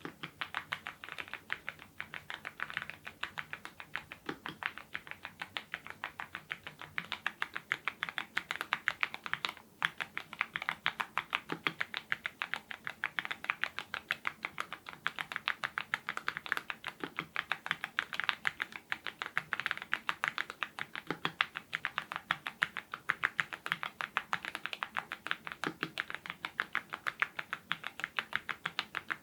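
Continuous typing on a YUNZII IF99 full-size mechanical keyboard fitted with lubed Gateron Ink red linear switches: a fast, even run of keystrokes, several a second, with one brief pause about ten seconds in.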